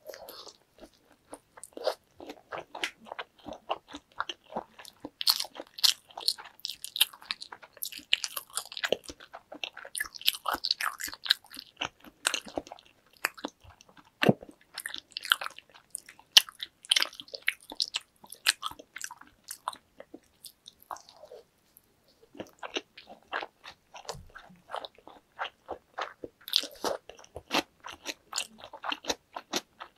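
Close-miked eating of a large salmon nigiri: a bite into the raw salmon and rice, then steady chewing with many quick mouth clicks and smacks, easing off briefly about two-thirds of the way through.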